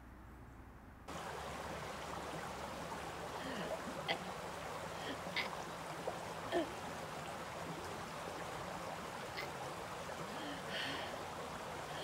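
Steady rush of running water from a stream, starting about a second in, with a few short high calls scattered over it.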